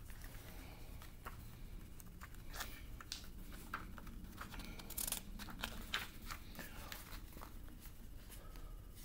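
Pages of a small book being turned and handled: faint, scattered paper rustles and soft clicks over a steady low room hum.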